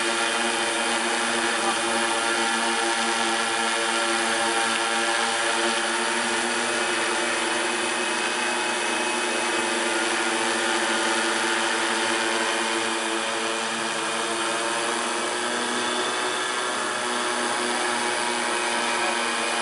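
Kraken 130 octocopter's electric motors and propellers whirring steadily as it hovers low, a constant buzzing drone made of several overlapping steady tones.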